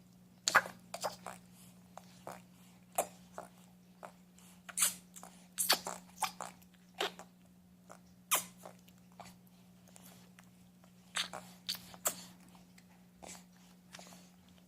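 Baby making short, snorty "pig sounds" and mouth noises: a run of quick, irregular snorts and smacks, a few at a time with short gaps, over a steady low electrical hum.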